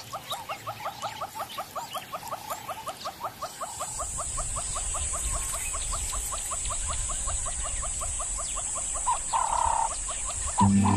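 Rapid run of short, high chirping animal calls, about five a second, thinning out about nine seconds in with a few louder calls. A steady high hiss comes in about three seconds in.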